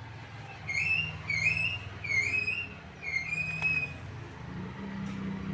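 A run of about five short whistled notes, each bending up or down in pitch, over a steady low hum.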